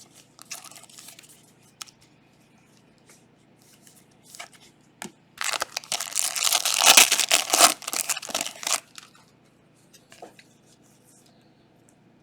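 Foil trading-card pack being torn open and its wrapper crinkled. It is loudest for about three seconds in the middle, with lighter crinkles and a few sharp clicks around it.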